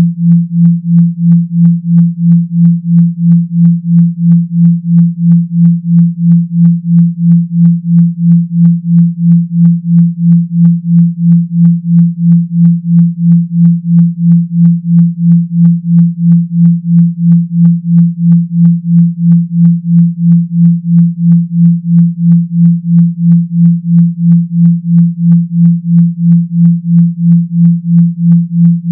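Synthetic 170 Hz sine tone, a deep buzzing hum pulsing evenly on and off about two and a half times a second, like a phone vibrating.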